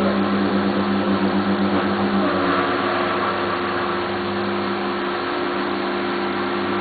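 FANUC Robodrill machining centre milling a steel dome: a steady spindle and cutting tone over the hiss of coolant spray, the main tone changing slightly about two seconds in.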